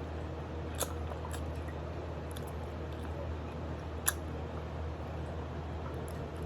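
Mouth noises of someone eating adobo chicken feet: soft chewing and sucking on the bones, with small wet clicks, two sharper ones about a second in and about four seconds in. A steady low hum runs underneath.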